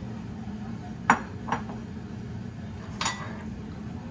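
Metal kitchen utensils clinking against a stainless steel soup pot while stirring: a sharp clink about a second in, a lighter one just after, and another about three seconds in, over a steady low hum.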